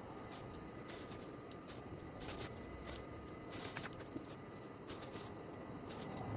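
Faint, irregular rustles and light ticks as hazelnuts are pressed by hand into raw, egg-glazed dough on a baking tray, over a steady low room hum.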